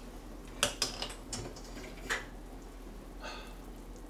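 A few faint, light clicks and knocks as a pot gripper takes hold of a hot earthenware pot (ttukbaegi) and lifts it off a gas burner.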